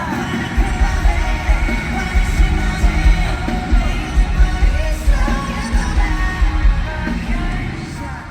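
Live pop song played through a concert sound system: a singer's voice over a band with a pulsing bass beat. The bass drops out near the end.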